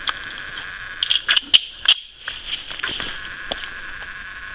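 A steady, high-pitched evening chorus of frogs and insects. Several sharp knocks and rattles come between about one and two seconds in.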